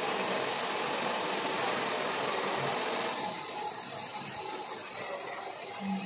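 Hand-held blow dryer running steadily, a rush of air with a faint motor whine, blowing through wet hair on a round brush. It gets somewhat quieter about three seconds in.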